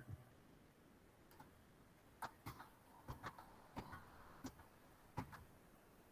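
Near silence: room tone, then from about two seconds in a scattering of faint, irregular clicks and taps, about eight over three seconds.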